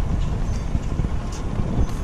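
Wind rumbling on the microphone, with a few faint light ticks.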